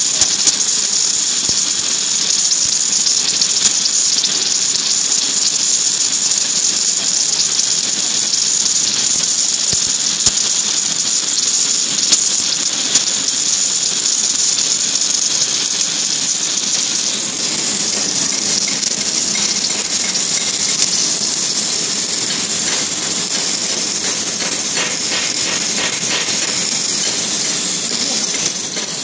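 Submerged arc welding in progress: a steady, loud hiss from the welding head running along the flux-covered seam, with light crackling.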